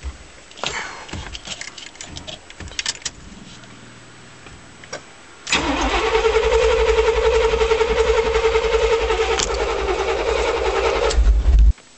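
Small light clicks and rattles, then about five and a half seconds in the 1989 Chevrolet pickup's 350 small-block V8 is cranked on the starter: a loud, steady whine over a low rumble that lasts about six seconds and stops abruptly.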